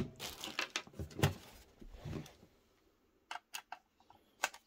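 Handling knocks and rustles as a Lenovo ThinkCentre micro PC's case is picked up and moved about, then a few separate sharp clicks near the end as a Phillips screwdriver turns the screw on the back of the case.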